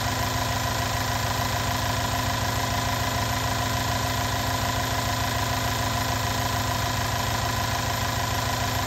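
Mercedes-Benz M278 4.7-litre twin-turbo V8 idling steadily during warm-up after a cold start, heard from the open engine bay. An even engine beat with a steady whine over it.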